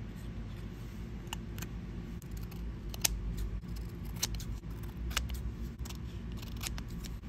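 Scissors snipping through printed paper in a series of short, separate cuts, roughly one a second, over a steady low hum.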